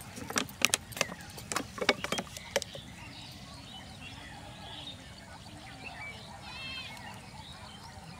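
A run of sharp clicks and crackles over the first few seconds as a plastic sauce bottle and its cap are twisted open and handled, then a steady faint outdoor background with a short bird chirp about two-thirds through.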